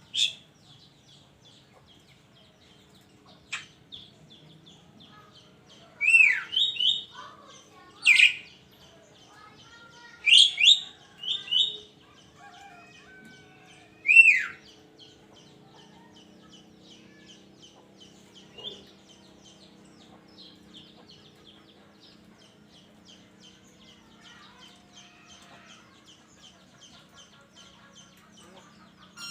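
A burung kerak calling: loud, sharp calls that sweep downward in pitch, coming in short bursts about 6, 8, 11 and 14 seconds in, over a constant fast, faint chirping.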